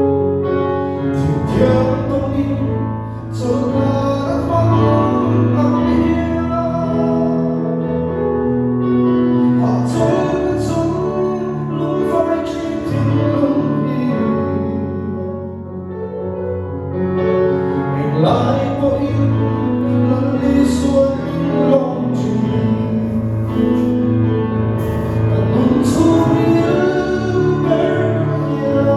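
A song sung with instrumental accompaniment: held vocal lines over steady bass notes.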